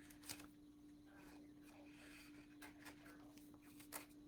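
Near silence: faint room tone with a steady low hum and a few soft clicks.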